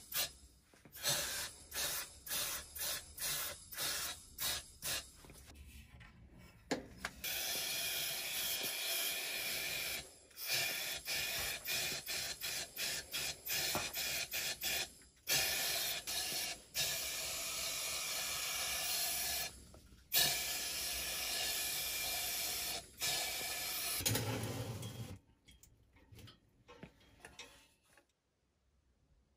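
Small compressed-air paint spray gun spraying: first a quick run of short bursts of hiss, then several long, even hissing passes a few seconds each with brief pauses between them.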